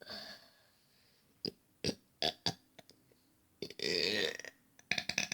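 Deliberate burps made by swallowing air: a short burp at the start, several quick short ones, then a longer, louder burp about four seconds in, with a cluster of short sharp sounds near the end.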